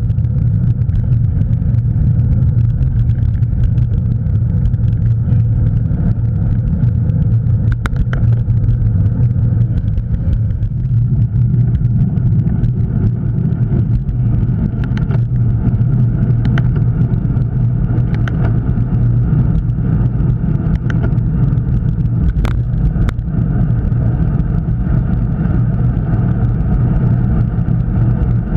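Wind buffeting the microphone of a camera riding on a road bicycle at speed, as a loud steady low rumble mixed with tyre noise on the road. A few sharp clicks or knocks come through now and then.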